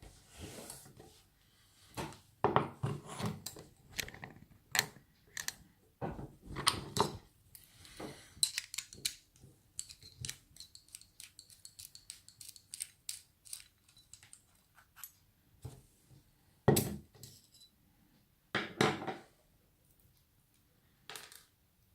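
Small metal clicks, clinks and taps of an Abus 83CS/50 padlock and its key being handled and taken apart, coming irregularly, with two louder knocks late on.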